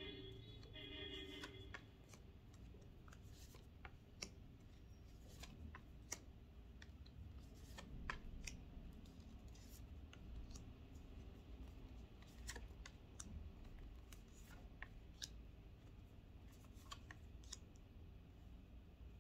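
A deck of tarot cards being shuffled and handled by hand: faint, scattered clicks and snaps of the cards, irregular throughout.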